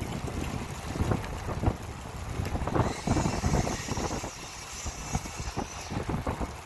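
Bicycle towing a pet trailer over pavement: the trailer frame and wheels rattle and knock irregularly over a steady rolling rumble.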